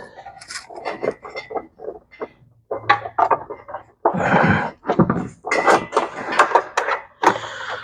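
Irregular clicks, knocks and rustling of parts and tools being handled, with several sharp taps and a few longer scraping or rustling stretches about halfway through and near the end.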